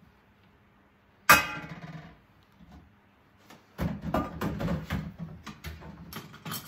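Stainless-steel saucepan and steamer basket clanking at a kitchen sink: one sharp ringing clang about a second in, then a run of clattering knocks from about four seconds in as the pots are handled.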